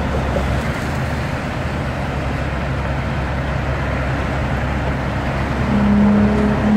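Steady rumble of road traffic and heavy vehicle engines. A steady low droning tone comes in about five and a half seconds in, breaks off briefly, then carries on.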